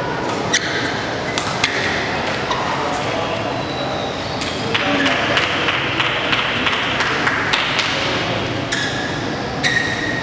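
Badminton hall ambience: a few sharp clicks of rackets hitting shuttlecocks and short high squeaks of shoes on the court floor, over a murmur of voices in the big hall.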